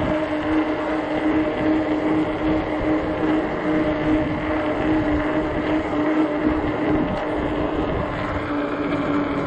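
Ecotric 48V fat-tire e-bike under way: a steady hum from the motor and fat tyres, dipping slightly in pitch near the end, under wind rushing and buffeting on the microphone.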